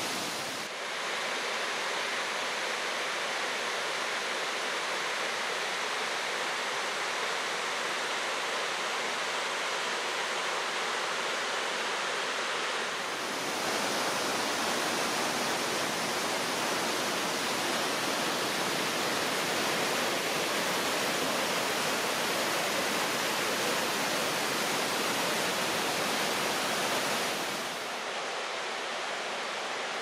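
Steady rush of a mountain stream cascading through a narrow rock gorge. It gets a little louder about a third of the way in.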